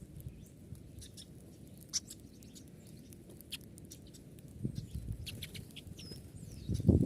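Scattered short, faint bird chirps over a low rumble, with a sudden louder thump right at the end.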